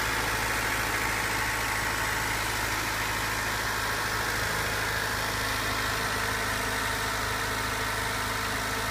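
1992 Honda Civic LX's 1.5-litre four-cylinder engine idling steadily, heard with the hood open. It is running at a raised cold-start fast idle of about 1500 rpm on its first start of the day in freezing weather.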